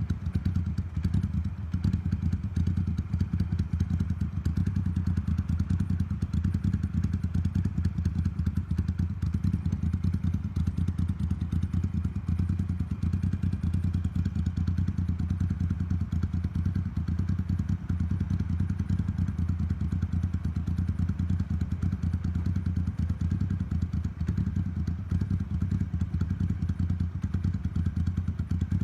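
Motorcycle engine idling steadily on an aftermarket Mikuni TM40 carburetor.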